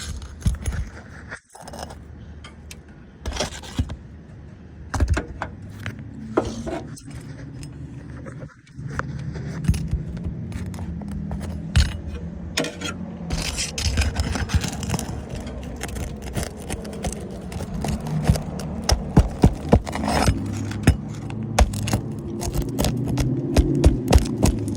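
An asphalt roof shingle being pried loose and pulled out: irregular scraping and sharp metallic clicks and clinks, coming thicker toward the end, with a steady low hum underneath from about nine seconds in.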